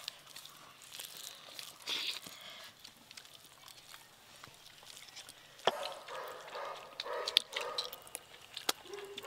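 Quiet eating by hand: fingers working rice on a banana leaf and a person chewing and sucking on a rohu fish head, with scattered small clicks.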